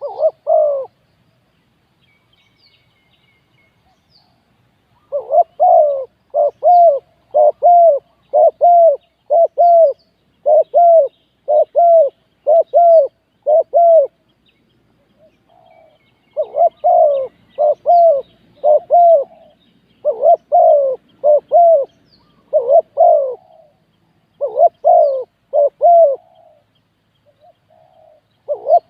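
Spotted dove cooing: long runs of evenly spaced low coos, about one and a half a second, in two bouts with a short pause between, after a single coo at the start.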